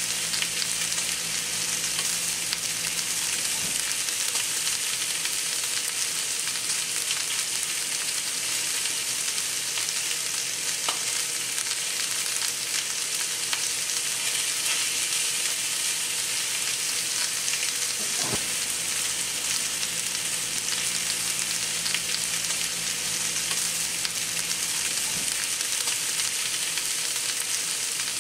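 Two New York strip steaks and chopped garlic searing in a hot pan: a steady sizzle.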